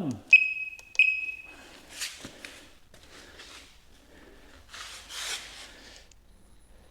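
Veteran Sherman-L electric unicycle beeping twice as it powers on: two short high-pitched beeps, each fading out. A few soft rustling noises follow.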